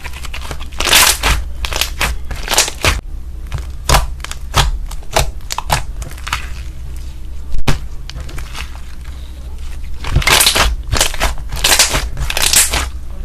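Slime being squeezed and worked by hand, making irregular crackling and popping sounds, with the busiest stretches about a second in and again from about ten seconds in.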